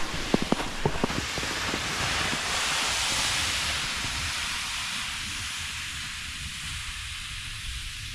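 A few crunching footsteps in snow in the first second, then a sled dragged over snow hisses past close by and fades as it moves away.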